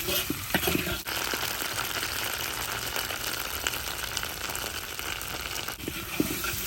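Chicken frying in hot oil: a steady sizzle with fine crackling throughout.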